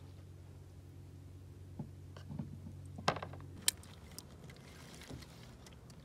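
A few light clicks and knocks, the two sharpest about three and three and a half seconds in, over a faint steady low hum.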